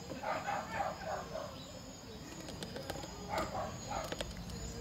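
A small dog yapping in short, quick runs of barks, a few seconds apart.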